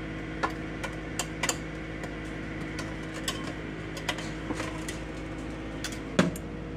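Slotted metal spatula clicking and scraping against a metal air fryer oven tray as cornbread bean patties are lifted and checked, a dozen or so light clicks over a steady hum. Near the end comes one louder metal clunk with a low ring as the tray goes back into the oven.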